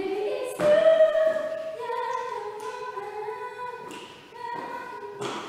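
Unaccompanied singing voices holding long notes, starting suddenly and loudest in the first second or so.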